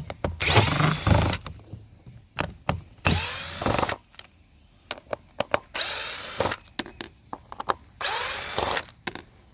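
Cordless drill backing screws out of a plastic housing in four short runs, each spinning up and winding down, with small clicks between runs.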